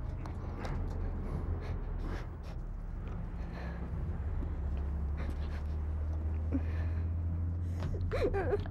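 Steady low rumble of a GAZelle cargo van on the move, heard from inside its cargo hold, with rustling and small clicks of food and wrappings being handled. A girl's sniffling, gasping breaths and a brief wavering whimper near the end.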